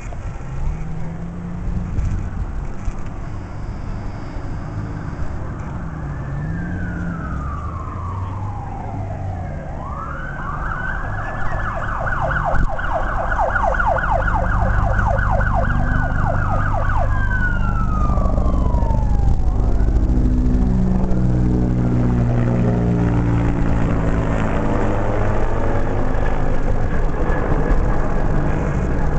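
Emergency vehicle siren sounding slow falling wails with a fast yelp in the middle. In the second half a loud, low engine rumble grows and takes over.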